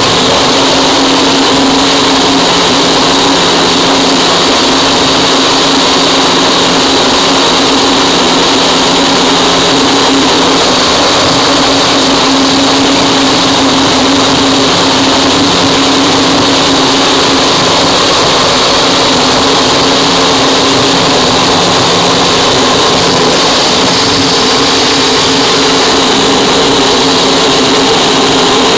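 Harsh noise wall: a loud, dense, unchanging mass of distorted static that fills every pitch, with a steady low hum and a steady high band running through it.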